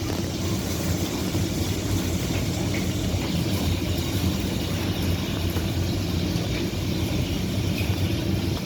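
A steady low mechanical rumble and hum, with no breaks or changes.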